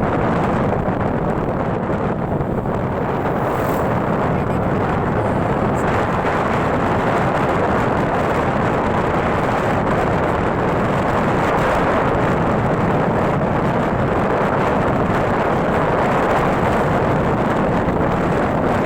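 Steady wind rush on the microphone mixed with the running noise of a moving motorcycle on the road, even and unbroken throughout.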